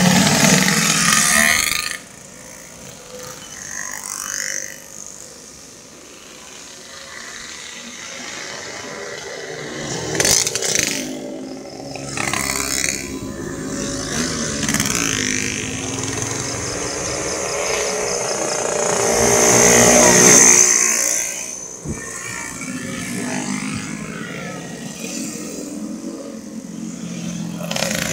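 Motorcycle engines passing one after another, their pitch rising and falling as each goes by. The sound is loud for the first two seconds, then drops off, and builds to its loudest again about twenty seconds in.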